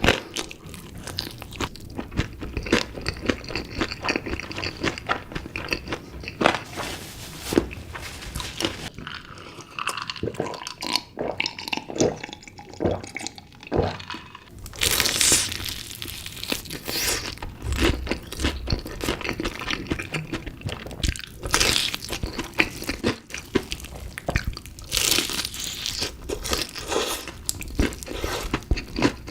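Close-miked eating of chicken pieces in spicy sauce with cheese: repeated bites and chewing, with dense crackling clicks.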